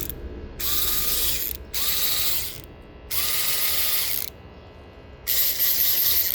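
Vessel cordless electric ratchet's motor and gears whirring in four short bursts of about a second each. Each burst spins up at the trigger and winds down on release.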